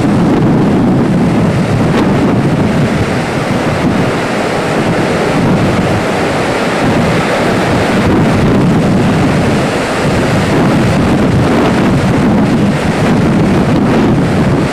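Loud, steady rush of Niagara Falls' water plunging into the gorge, mixed with wind noise on the microphone.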